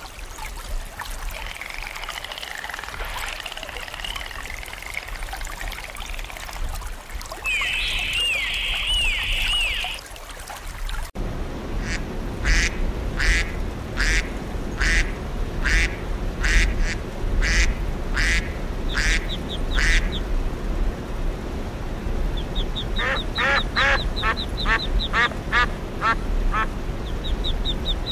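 Dolphin chirps and whistles, with a few quick arched whistles about eight seconds in. Then mallard ducks quacking: a steady series of about a dozen single quacks, roughly one and a half a second, followed by a quicker run of quacks, with a fast high trill behind them.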